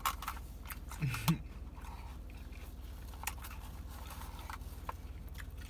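Close-up eating sounds: chewing and small lip smacks and clicks while working on grilled chicken, with a brief hummed note, rising in pitch, about a second in.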